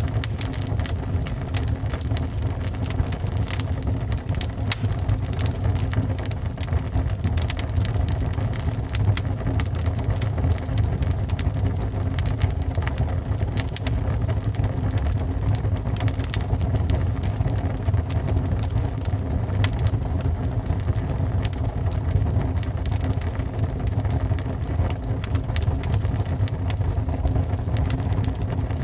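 Wood fire burning in a fireplace, with irregular crackles and pops over a steady low rumble.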